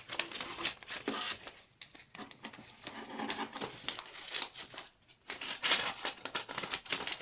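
A paper envelope being torn open by hand, with repeated crinkling and ripping of paper in irregular strokes and a couple of short pauses.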